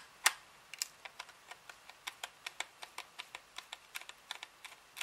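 A small screwdriver turning out the screw that holds the quadcopter's ESC board in its plastic arm. It makes a quick, even run of small sharp clicks, about five a second, with a louder click just after the start.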